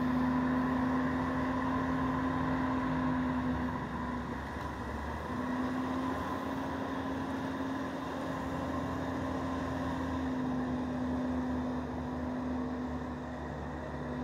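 A compact sidewalk tractor's engine and front-mounted snowblower running steadily while clearing snow: a steady engine hum with a fainter, higher whine over it. The hum dips out briefly about four seconds in, then returns.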